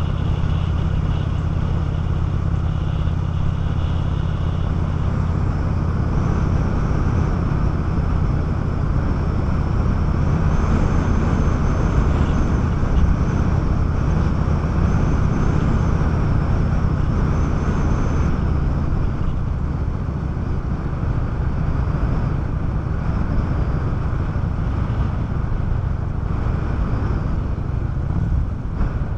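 Honda 650 motorcycle engine running steadily at cruising speed, heard from the bike itself with an even rush of wind and road noise. The engine note thins out about two-thirds of the way through, as the throttle eases.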